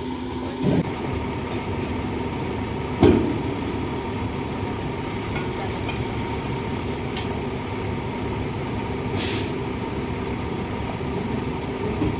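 Steady vehicle rumble with two sharp knocks, a small one near the start and a louder one about three seconds in, and a brief hiss about nine seconds in.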